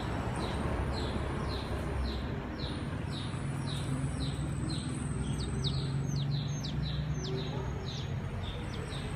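A steady run of short, high chirps, each falling in pitch, about two a second, with a few quicker extra calls around the middle. A low steady hum sits underneath.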